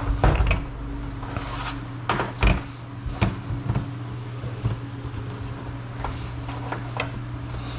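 Scattered knocks and clacks of hard plastic radiator fan-shroud parts being handled and set down, the loudest about a quarter second in and again around two seconds in, over a steady low hum.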